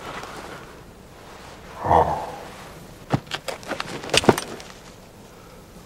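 Film gunfight sound effects: a dull boom about two seconds in, then a quick run of about eight sharp cracks and clicks from a rifle, the loudest near the end of the run.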